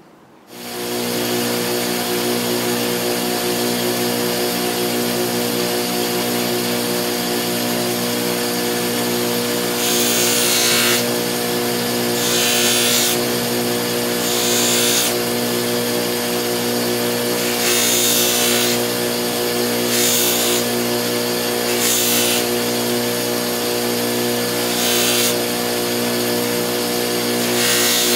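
Electric grinding or sanding machine starting up and running with a steady motor hum, with about eight short bursts of grinding hiss as the steel blade of a folding pocket knife is pressed against it.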